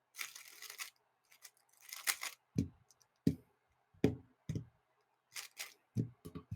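A 3x3 speedcube being turned fast, giving irregular bursts of plastic clicking and clacking with a few low knocks.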